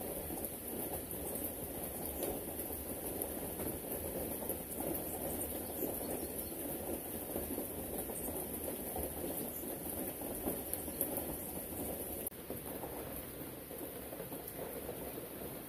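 Steady rain falling, a dense crackling patter of many drops, a little quieter after about twelve seconds.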